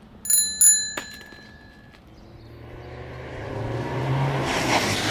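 Two quick metallic dings, ringing briefly with a bell-like tone, then a car's engine sound swelling steadily louder as it comes closer.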